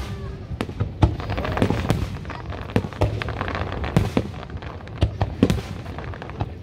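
Aerial firework shells bursting in a rapid, irregular series, sharp bangs about every half second to a second over a continuous low rumble.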